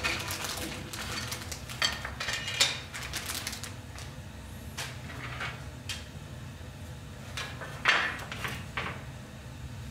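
Hard plastic toy parts clicking and clattering as they are handled and set down on a wooden workbench, a string of separate sharp knocks with the loudest about eight seconds in.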